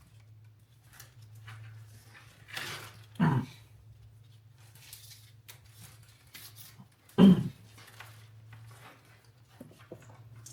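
Wires of a Land Rover Discovery 2 wiring harness being handled and pulled apart: rustling and light clicks over a steady low hum, with two short louder knocks about three and seven seconds in.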